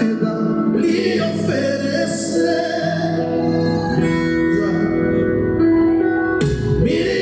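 A gospel song: a voice sings over guitar accompaniment, holding a long note that breaks off about six and a half seconds in.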